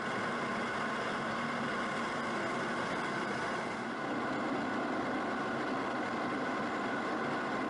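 Steady jet engine noise with a faint high whine, unchanging throughout.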